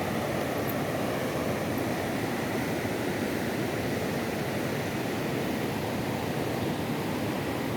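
Waterfall: a steady, unbroken rush of falling and churning water.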